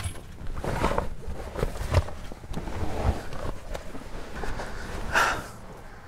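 Rustling and soft knocks from a person climbing about and settling onto an inflatable camping bed in a car's boot, irregular and without a steady rhythm, with a louder rustle about five seconds in.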